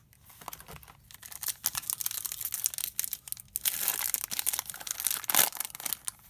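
Foil wrapper of a Topps baseball card pack being torn open and peeled back by hand: a dense crinkling and crackling with sharp snaps. It starts faint, builds about a second and a half in, and is loudest in the second half.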